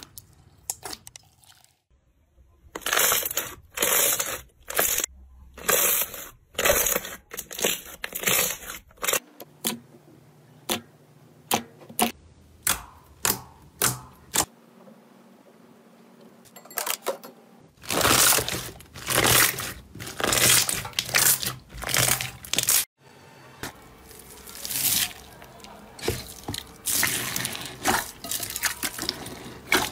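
Slime being squeezed, pressed and poked by hand: sharp wet pops and clicks, several a second in places, with fewer of them in the middle. Near the end, a purple slime full of foam beads being kneaded in a glass bowl gives a denser crackling.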